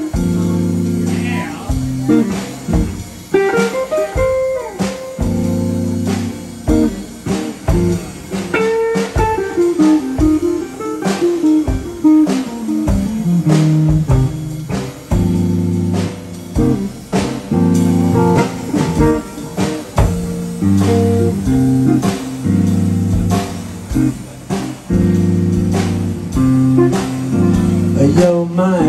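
Live blues band playing an instrumental passage: amplified electric guitar over a drum kit, with sustained chords underneath and regular drum hits throughout.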